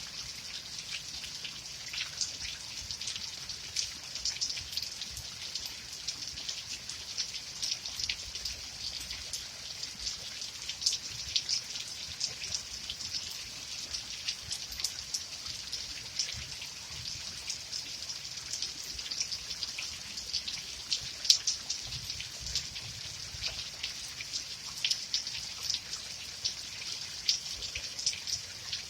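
Steady rain falling, with a constant hiss and many close, separate drops ticking and pattering on a surface.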